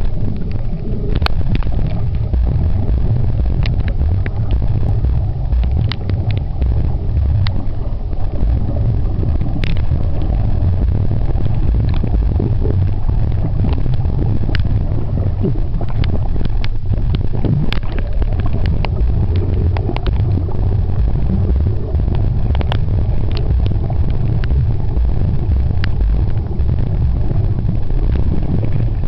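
Underwater noise from a camera held beneath the surface: a steady, muffled low rumble with irregular sharp clicks scattered throughout.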